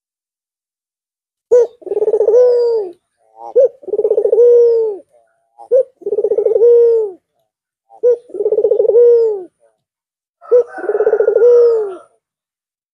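Albino Barbary dove (puter) cooing five times, about once every two seconds, starting about a second and a half in. Each call is a short note followed by a longer rolling coo that falls in pitch at the end.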